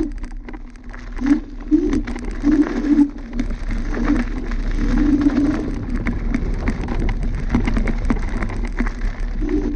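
Dualtron Thunder electric scooter riding over a rough dirt and gravel track: the tyres crackle and click on the stones and the scooter rattles over the bumps. A low steady hum runs underneath.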